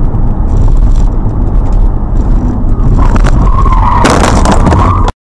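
Loud road rumble inside a moving car, then about three seconds in a sharp bang and, a second later, a loud crash with a ringing tone as a truck's runaway wheel and tyre strike the car. The sound cuts off abruptly near the end.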